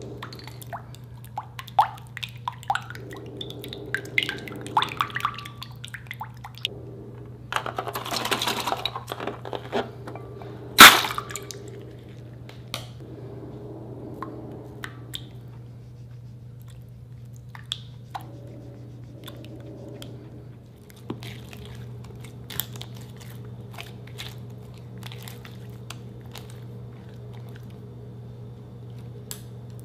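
Clear slime being worked in a container: irregular sticky clicks, crackles and squishes. A longer noisy stretch comes around eight seconds in, and one loud knock about eleven seconds in.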